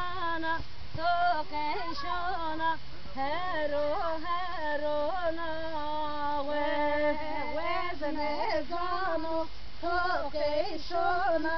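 A group of women and girls singing a song together in unison, unaccompanied, with long held notes.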